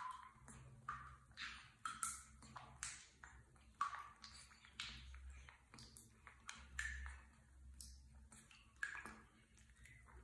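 Small splashes and plops of water in a plastic tub as a baby monkey paddles and moves through it. They come as quick, irregular taps, about two a second, some with a short ringing ping.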